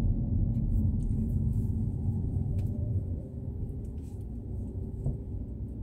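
Steady low rumble of a car driving, its engine and tyres heard from inside the cabin, easing somewhat about three seconds in.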